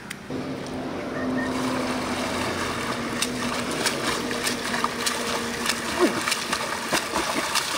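A swimmer churning the water of a canal at front crawl, arms slapping the surface over and over, with a continuous wash of splashing. A faint steady hum sits under the splashing in the first few seconds.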